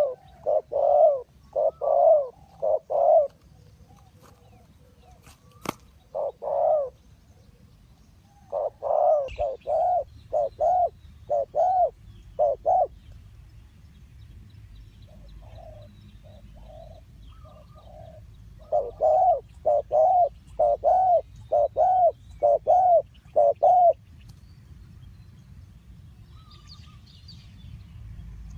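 Spotted dove cooing: repeated phrases of low coos with pauses between them, with a fainter run of coos midway.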